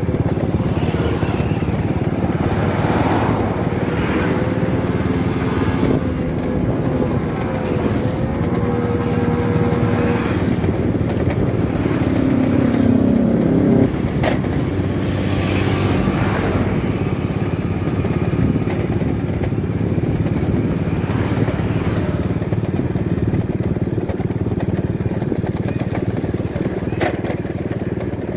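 Motorcycle engine running steadily while riding, with wind rushing over the microphone. The engine note shifts a little in pitch about halfway through as the speed changes.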